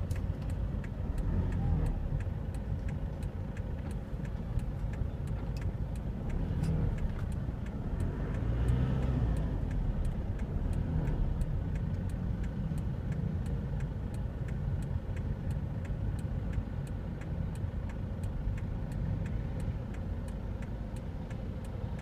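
Car engine and tyre rumble heard from inside the cabin while driving at low speed on a city street, with a faint regular ticking.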